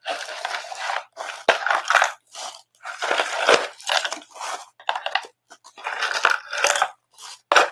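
Packing paper crinkling and rustling as it is handled and sorted through, in a run of short noisy bursts with brief pauses between.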